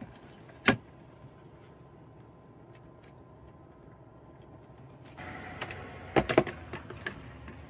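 A sharp click about a second in. Then, about five seconds in, a cordless impact driver fitted with a drill bit starts drilling into the camper floor through a metal backing plate, with a few sharp clacks.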